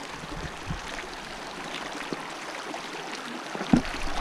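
A shallow mountain creek babbling steadily over rocks, with a few light footsteps and one loud thump near the end as the hiker crosses it.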